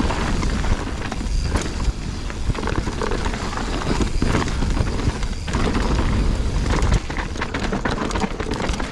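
Wind buffeting the microphone and a mountain bike rattling over rough trail, with scattered knocks and clatter.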